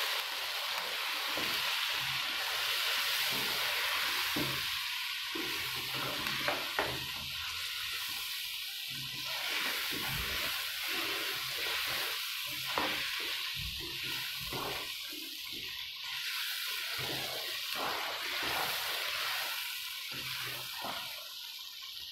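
Mutton pieces sizzling as they fry in spice powder in a nonstick wok, with the spatula stirring and scraping against the pan. There are frequent clicks and two sharp knocks about seven seconds in.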